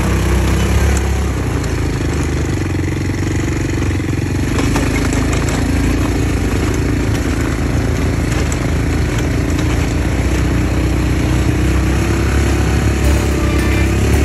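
Off-road buggy's small engine running steadily under way, its pitch rising a little near the end.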